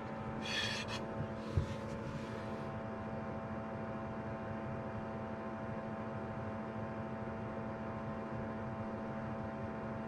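Nakatomi MAC-20 portable air conditioner running in fan mode on a 1000 W square-wave inverter, giving a steady hum with a few high, even tones over it. This is the odd noise it makes only on the inverter's square-wave power, a sign the power doesn't suit it, while its compressor fails to start. A brief rustle of a hand on the inverter case comes near the start.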